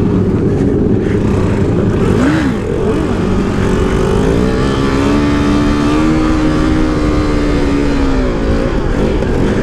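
2015 KTM RC 390's single-cylinder four-stroke engine revving under riding load, the revs dipping and rising again about two seconds in. The engine then holds steady high revs through a wheelie for about four seconds before dropping near the end.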